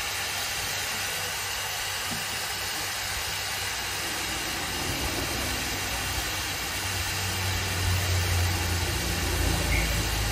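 Narrow-gauge steam locomotive standing in steam with a steady hiss of escaping steam. A low rumble grows in from about two-thirds of the way through.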